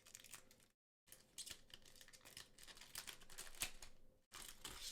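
Faint soft clicks and rustling of trading cards being slid and flicked through the hands one after another. The sound cuts out completely for a moment twice.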